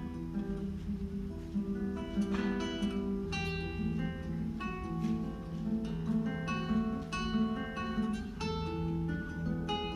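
Solo classical guitar played fingerstyle: a plucked melody over held bass notes, several notes a second.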